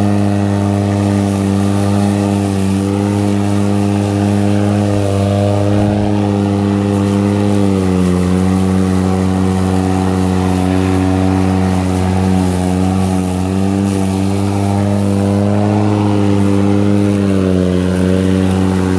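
ECHO 58-volt brushless cordless lawn mower running while it is pushed through thick grass, giving a steady hum. Its pitch dips slightly about eight seconds in and begins to fall near the end.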